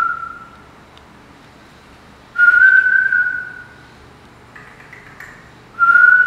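A man whistling three clear, steady single-pitch notes in imitation of a bird's song: a short one at the start, a longer one about two and a half seconds in, and another near the end.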